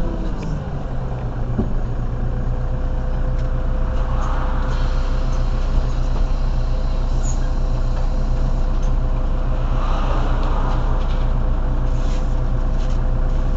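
Mercedes-Benz Citaro city bus engine idling steadily at a stop, with a constant whine above the engine hum. Two hisses of air come about four and ten seconds in.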